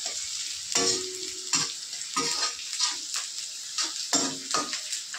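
Chopped onions and whole spices sizzling in hot oil in a steel kadai, stirred by a perforated steel ladle that scrapes and clinks against the pan several times over the steady sizzle. The onions are at the golden-brown stage of frying.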